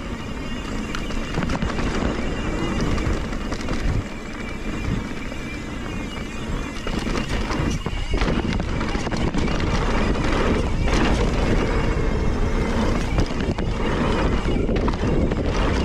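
Mountain bike riding fast down a dirt trail: wind buffeting the microphone over the tyres and bike rattling across bumps, growing louder about halfway through.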